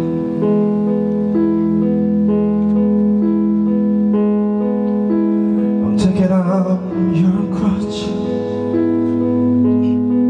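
Live band music without vocals: an electric keyboard holds chords under a repeating pattern of higher notes, with an electric bass underneath. The bass comes in stronger about eight seconds in.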